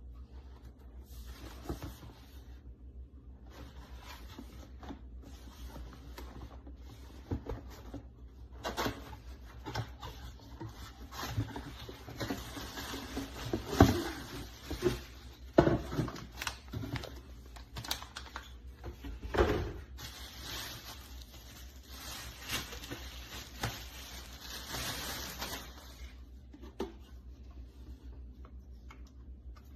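Handling sounds: scattered clicks, knocks and rustling, with a few louder knocks in the middle and two longer stretches of rustling.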